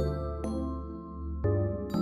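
Background music: struck notes that ring out, over a low bass, with a new note about every half second.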